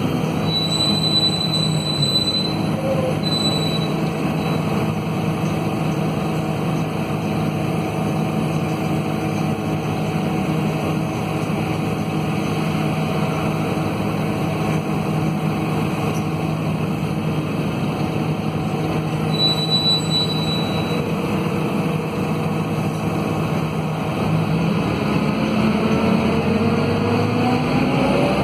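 Scania DC9 five-cylinder diesel of a city bus, heard from inside the cabin, running steadily as the bus drives along. Its note rises near the end as it pulls harder. Two brief high whistles sound, one near the start and one about two-thirds in.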